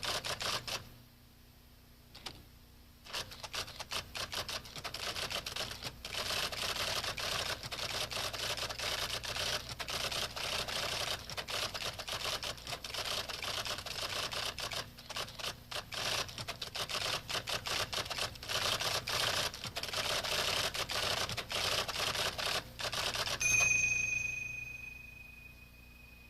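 Rapid typing on an electric typewriter: a dense, continuous clatter of key strikes for about twenty seconds. Near the end comes a louder clack, followed by a ringing tone that fades out.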